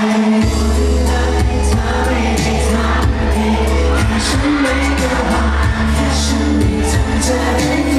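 A Thai pop song plays loud through a stage PA, with several male voices singing the melody. Heavy bass and percussion come back in about half a second in, after a brief drop.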